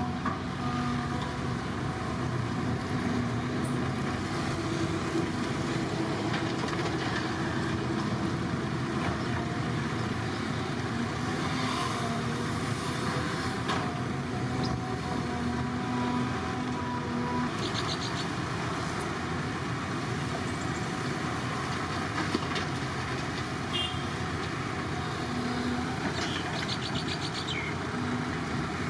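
Diesel engine of heavy construction machinery running steadily, with a few short higher-pitched rattles in the second half.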